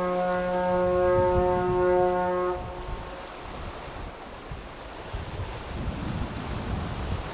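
Ship's whistle of the passenger ferry Tachibana-maru sounding a long, steady blast that stops about two and a half seconds in. Gusting wind on the microphone and surf follow.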